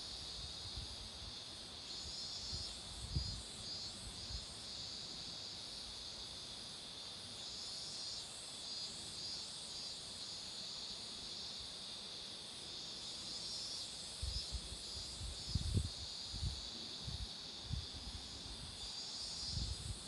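Cicadas buzzing in a steady chorus, a high drone with a faint pulsing in it. Low rumbles and thumps come in during the last few seconds.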